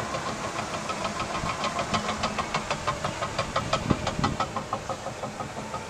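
A bulldozer working sand: a fast, even clanking of about four clanks a second over steady engine noise.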